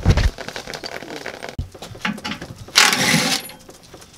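A deep thump of the camera being handled, then short bursts of scraping and rattling from a hand tool working at the front of a truck, the loudest lasting about half a second near three seconds in.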